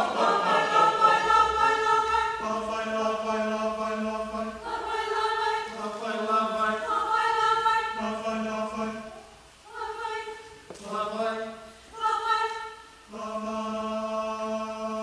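A choir singing in long held chords. The phrases break off briefly a few times in the second half, and the choir holds a long chord near the end.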